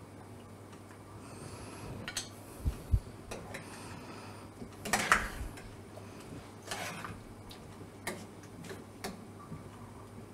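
Metal ladle clinking against a saucepan and a ceramic plate while boiled chicken pieces are lifted out of the pot, in irregular clinks with the loudest about five seconds in.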